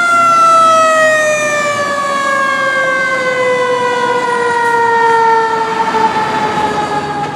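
Fire engine siren winding down in one long, slowly falling tone, rich in overtones.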